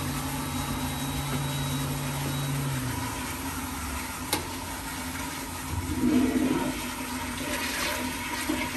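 Commercial flushometer toilet flushing: a steady rush of water, with one sharp click about four seconds in.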